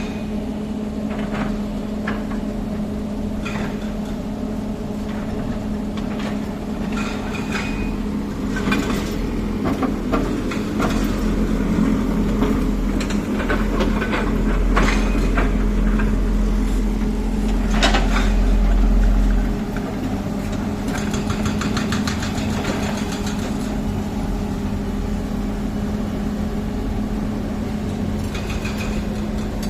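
Heavy diesel machinery engine running steadily, with scattered metallic knocks and clanks. Its low rumble swells for several seconds past the middle, then drops back suddenly.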